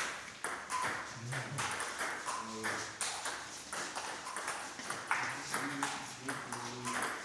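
Table tennis rally: the ping-pong ball clicking sharply off the paddles and bouncing on the table in a quick back-and-forth run of hits.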